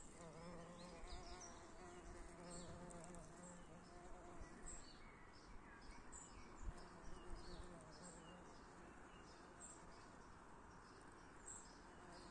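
Bumblebee buzzing faintly at wallflowers, in several short spells that stop and start.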